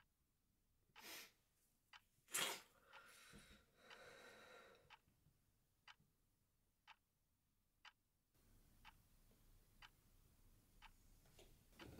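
A clock ticking faintly, about once a second, in a quiet room. Breaths are heard over it, the loudest a sharp one about two and a half seconds in, followed by a longer breathy exhale. The room's background hiss rises near the end.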